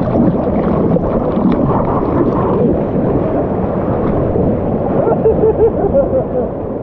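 Surf waves breaking and washing through the shallows, with wind rumbling on the microphone.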